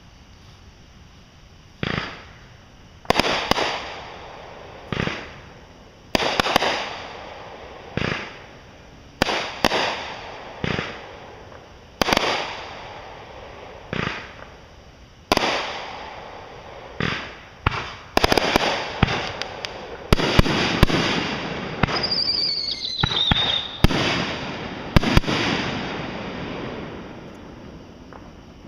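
Fireworks going off: single bangs every second or two, each with a fading crackle. Later the bangs crowd into a rapid crackling barrage with a brief falling whistle in it, and this dies away near the end.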